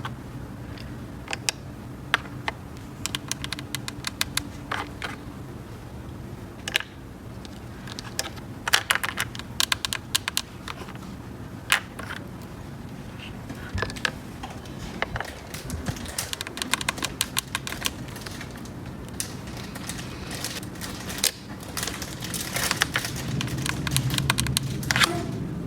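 Irregular light clicks and taps of small hard plastic toy pieces being handled and set down, coming in quick clusters at times, over a steady low hum.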